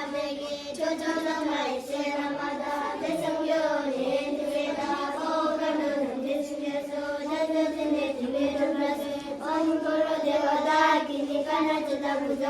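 A group of children chanting together in unison, a continuous sung recitation.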